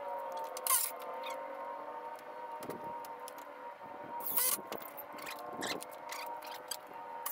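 Milwaukee cordless impact driver triggered in short, harsh bursts, about a second in and again about four and a half seconds in, driving screws into the lumber frame. Under it runs a steady whine of a few held tones.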